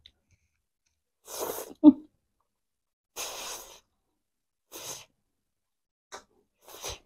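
Chow mein noodles slurped into the mouth in several short, noisy sucks. The first, at about a second and a half, ends in a brief loud voiced sound; the others come at about three, five and nearly seven seconds.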